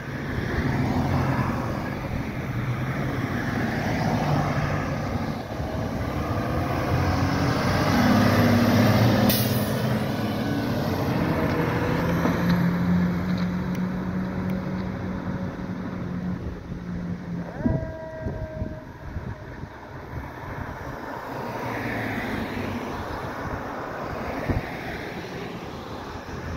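Diesel engine of an E-One Typhoon fire engine revving up through its gears as the truck pulls out and accelerates away, loudest about a third of the way in, then fading as it drives off.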